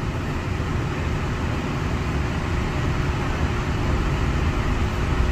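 Walt Disney World monorail train running, heard from inside the passenger cabin: a steady low rumble with an even hiss over it.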